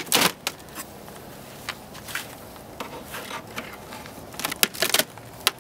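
Knocks, clicks and scrapes of wooden beehive boxes being handled as the heavy, honey-filled top box is lifted to reach the bottom box. A loud knock comes at the start and a cluster of knocks near the end, over a faint steady hum of honeybees.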